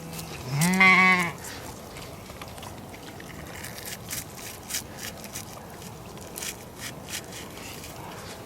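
A sheep bleats once, a single wavering call about a second in, followed by scattered faint clicks.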